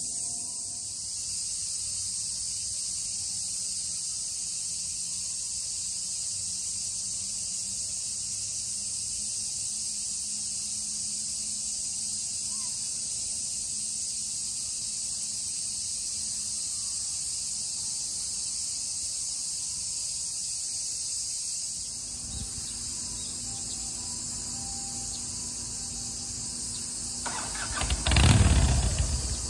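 Steady high-pitched outdoor hiss with a low rumble. A vehicle passes close by near the end, swelling up and fading in about two seconds.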